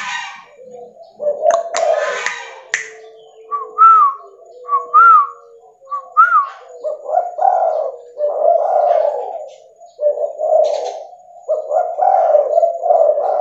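Spotted dove (tekukur), a red leopard colour mutant, cooing its low rolling 'bekur' call in repeated phrases through the second half. Before that come three short high whistled notes, each rising then falling.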